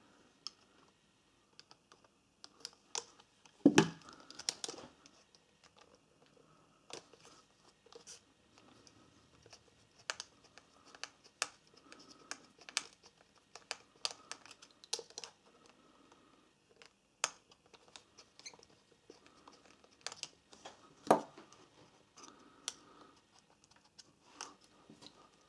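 Scattered small clicks and taps as a small Phillips screwdriver and fingers work at the plastic body and pop-up flash of a Nikon D3100 DSLR, with two louder knocks, one a few seconds in and one late on.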